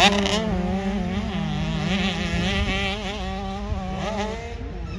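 Mini motocross bike engine revving, its pitch rising and falling as the throttle is worked. It fades away about four seconds in.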